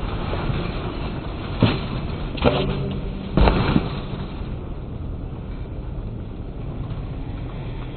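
A BMX bike knocking against the ground three times during a trick, about one and a half, two and a half and three and a half seconds in, the last knock the loudest, over steady outdoor wind noise.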